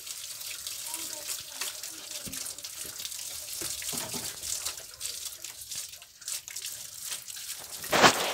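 Water trickling and splashing, with many small irregular drips. A single loud, brief knock comes near the end.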